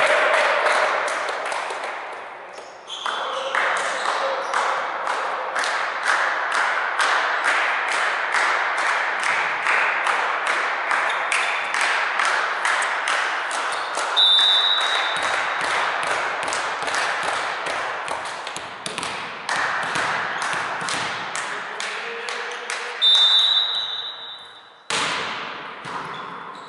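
Rhythmic hand clapping in a large hall, about two claps a second, kept up steadily. A volleyball referee's whistle blows briefly about 14 seconds in and again near 23 seconds, and a sudden loud sound follows shortly before the end.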